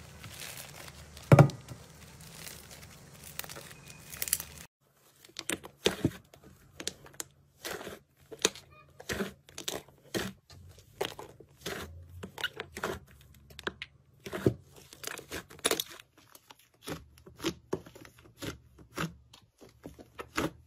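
Slime being stretched and torn apart by hands, with a crinkly tearing sound and one sharp snap. Then puffy slime is kneaded and pressed, giving off a long run of short crackling pops about two a second.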